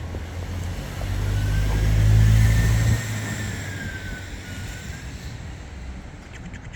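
A car passing close by: engine rumble and tyre noise swell to a peak about two seconds in, then fade, with a faint whine rising and falling as it goes.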